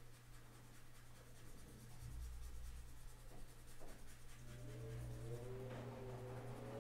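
Graphite pencil shading lightly on paper, a faint soft scratching. About four seconds in, a faint wavering hum joins it.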